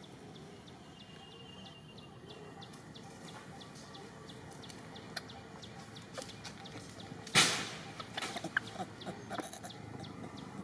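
Outdoor background with short, repeated animal calls and many small sharp ticks. About seven seconds in comes one loud sudden sound, followed by a run of short clicks and calls.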